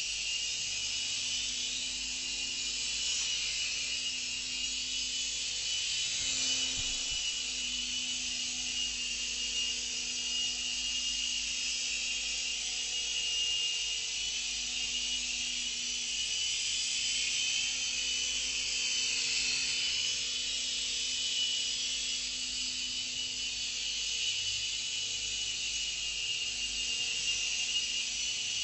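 Syma S110G mini coaxial RC helicopter in flight: the steady high whine of its small electric motors and spinning rotors. The pitch wavers a little now and then as it is steered.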